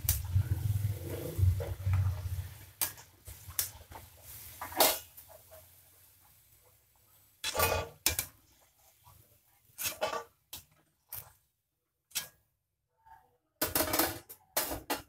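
Garadu (yam) chunks deep-frying in a kadai of hot oil, the sizzle fading over the first few seconds as the pieces are lifted out, with a metal slotted ladle knocking and clinking against the pan and a steel plate. After that, scattered sharp metal knocks follow, with a quick cluster near the end.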